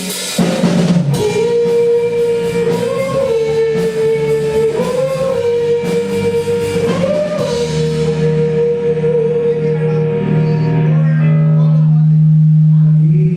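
Live rock band playing through amplifiers: a long held lead note bending up several times over drums and cymbals, then a sustained low note that cuts off suddenly at the end.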